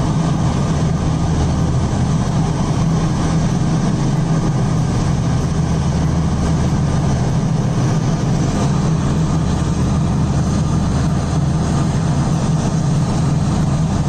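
Large hydraulic mining shovel's diesel engine running with a steady deep drone.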